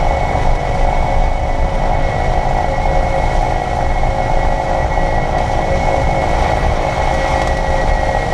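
Steady whirring, buzzing whine from a 2022 Kia EV6's front drivetrain, heard inside the cabin over low road rumble while driving at a steady speed. The owner hears this noise around 28–30 mph in Eco and Normal mode and finds it goes away when the front motor is engaged.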